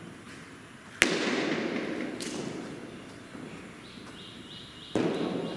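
A single sharp crack, a cricket bat striking the ball, about a second in, followed by a fading rush of noise. A smaller click comes a second or so later, and another burst of noise near the end.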